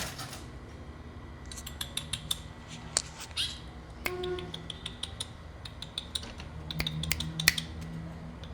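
A pet songbird known locally as a 'culo blanco' making bursts of short sharp clicks with a few brief chirps in between, calling ('roncando').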